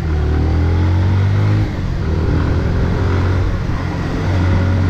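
Motorcycle engine running steadily in traffic, its low note dipping briefly about a second and a half in.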